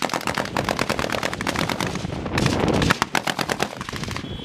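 Heavy automatic gunfire: rapid shots from automatic weapons, several a second and overlapping, with no break.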